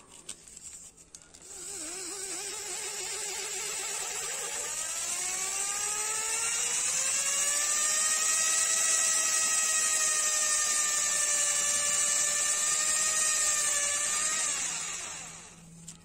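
A small electric motor spins a wooden tobacco pipe on a rod while sandpaper is held against it. The motor's whine climbs in pitch for several seconds as it speeds up, holds steady, then winds down a little before the end, with a steady sanding hiss over it.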